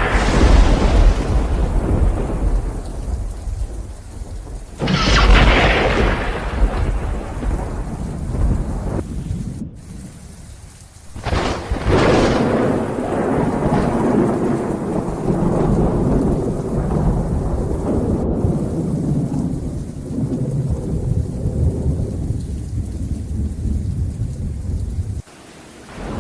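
Thunderstorm with rain: a continuous low rumble of thunder, broken by two sharp close thunderclaps about 5 and 11 seconds in, each fading into a rolling rumble. The sound drops out briefly near the end.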